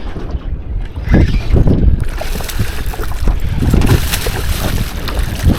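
Wind buffeting the microphone in gusts, a heavy low rumble, over water moving around a small boat at sea.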